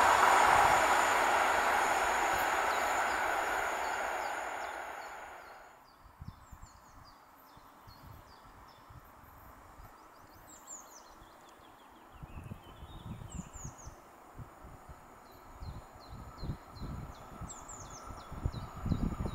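Electric multiple-unit passenger train running away along the track, its rumble fading out over about five seconds. Then birds chirping, with gusts of wind buffeting the microphone, stronger in the second half.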